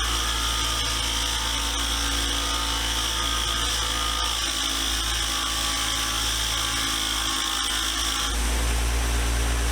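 A power wire wheel running steadily, cleaning the vise parts down to bare metal. Its sound shifts about eight seconds in, as the load on the wheel changes.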